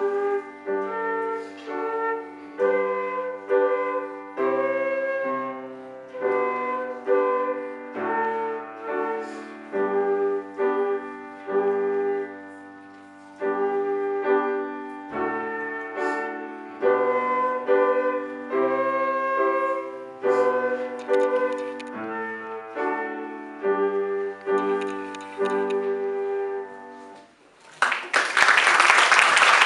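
Flute and grand piano playing a classical piece together, a sequence of held flute notes over piano chords. The music ends about 27 seconds in and the audience breaks into applause.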